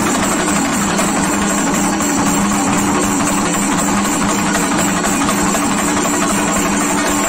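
Shinkari melam ensemble playing: loud, continuous, dense chenda drumming with cymbals, without a break.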